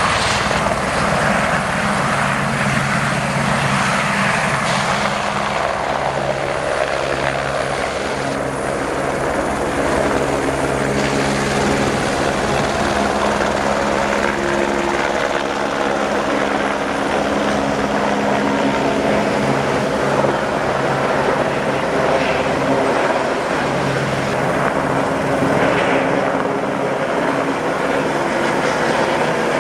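Air-Glaciers turbine helicopter's rotor and engine running loud and steady, the low drone shifting slightly in pitch now and then.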